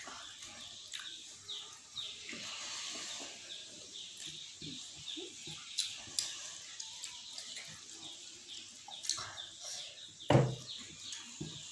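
Eating by hand: soft chewing and fingers working rice against china plates, under a quick high chirping that keeps up throughout. One loud thump about ten seconds in.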